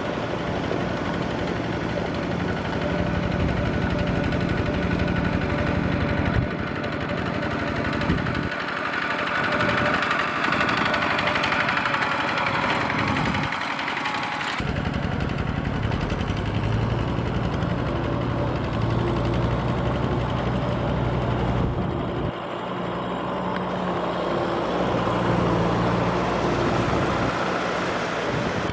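Two-wheel walking tractor's single-cylinder diesel engine (Kubota RT140) running steadily under load while plowing wet paddy mud. Its pitch and tone change abruptly a few times.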